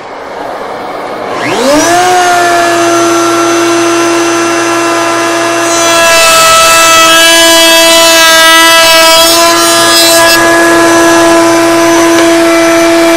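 Table-mounted wood router switched on, its motor spinning up to a steady high whine. From about six seconds in to about ten seconds a cherry blank is fed past the roundover bit, adding a harsh cutting noise over the motor, which keeps running after the cut.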